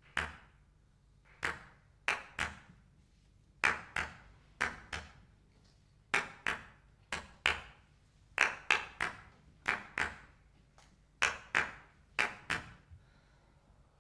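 A series of sharp knocks at an irregular pace, often in quick pairs, each with a short ringing echo. They stop a little before the end.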